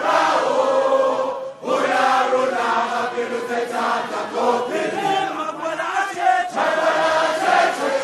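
Background music of a group of voices singing together in chorus, with brief pauses between phrases about one and a half seconds in and again near the end.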